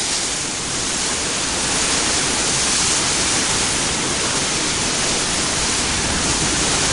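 Heavy thunderstorm rain pouring down in strong wind, a steady dense hiss that does not let up.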